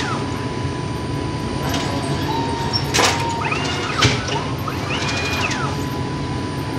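Bread-dough sheeting machine running with a steady drone. Two sharp metal clacks come about a second apart near the middle, with squeaky whines from the rollers and the spiked sprocket roller before and after them.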